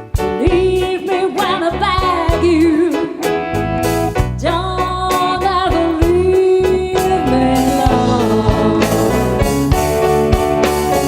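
A 1980s pop song: a singing voice carries the melody over a steady drum beat and a bass line.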